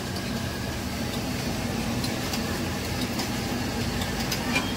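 Steady street background noise with a constant low motor drone, and a few faint clicks.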